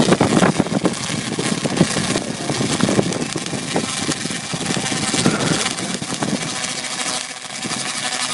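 Tesla coil firing, small sparks shooting from its toroid with a steady crackling buzz that dips briefly near the end.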